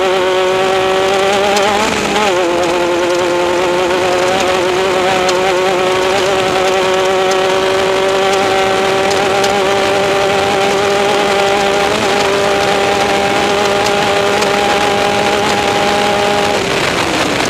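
Off-road race vehicle's engine held at high, steady revs, its pitch creeping slowly upward, with a brief dip about two seconds in. The revs fall away near the end.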